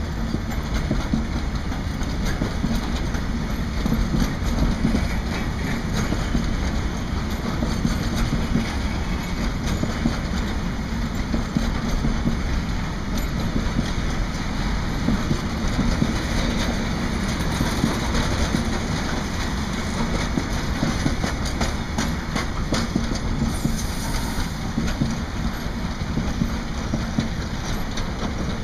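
Container flat wagons of a long freight train rolling past close by: a steady rumble of steel wheels on rail, with a continuous run of fine clicks and clacks from the wheels over the rail joints.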